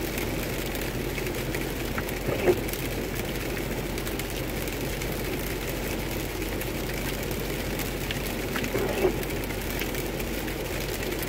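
Steady road and engine noise heard from inside a car driving on a rain-soaked highway: tyre hiss on the wet road over a low engine hum. A brief louder thump comes about two seconds in and another about nine seconds in.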